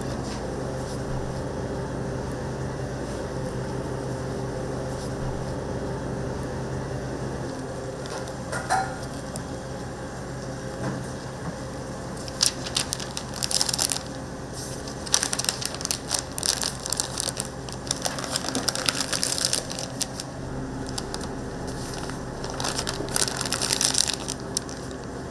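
Steady hum of a toast-shop kitchen, joined about halfway by bursts of crisp crackling and crunching from food being prepared or packed.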